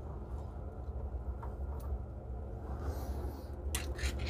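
Low steady rumble with a few light clicks and taps, sharper and closer together near the end, from a gloved hand handling the bus-bar connections on a Prius hybrid battery pack.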